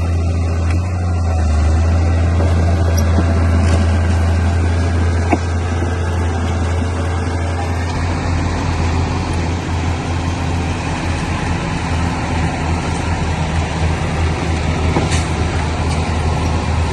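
Diesel engine of a Komatsu D31P bulldozer running steadily with a deep hum, its note turning rougher about eight seconds in, with one brief click about five seconds in.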